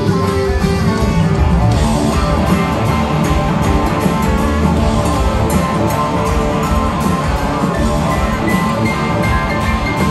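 Live rock band playing an instrumental passage with no singing: electric guitars over drums and keyboards.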